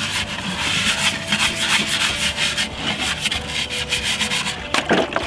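Short stiff-bristled brush scrubbing back and forth over the wet shell of a soaked hard-shelled gourd, a steady run of quick scratchy strokes as the softened outer skin comes off easily.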